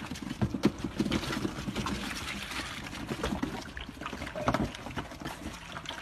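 A litter of puppies lapping milk from a shared bowl: a dense run of quick wet laps and slurps.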